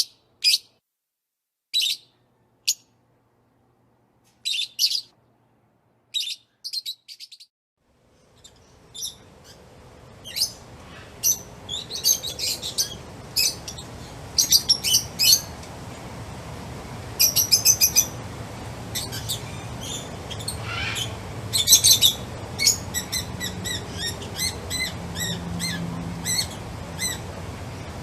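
Small birds chirping: short high chirps in quick clusters with silence between them, then about eight seconds in a steady low background hum fades in and the chirping grows denser and busier.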